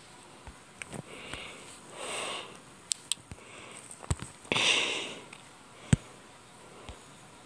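A person sniffing twice through the nose, once about two seconds in and more strongly near five seconds, between a few sharp taps on a tablet screen, the loudest tap just before six seconds.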